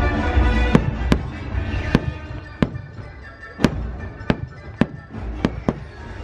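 Fireworks going off in about nine sharp bangs at uneven intervals, over show music that drops low in the first second or two.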